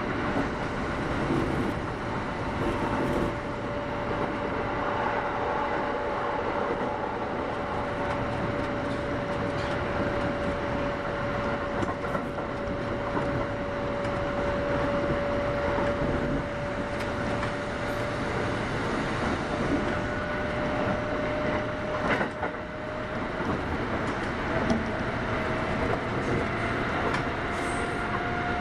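Kintetsu 8810 series electric train running, heard from inside the passenger car: the steady rumble of the train under way, with a single whine that holds steady and then rises in pitch near the end.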